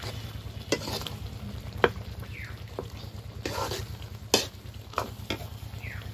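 Long metal ladle stirring a simmering curry in a large metal kadai, knocking and scraping against the pan about six times over a steady low rumble.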